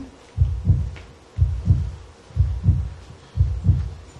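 Heartbeat sound effect: a low double thump, lub-dub, repeating evenly about once a second, four beats in all.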